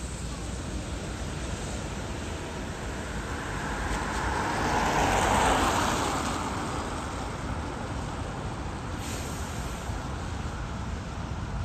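Steady rumble of road traffic on wet roads, with one vehicle passing close by about halfway through, its tyre hiss swelling and fading over a few seconds.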